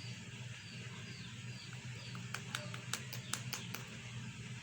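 Young chicks peeping faintly in short falling chirps, with a run of sharp light clicks about two and a half to four seconds in.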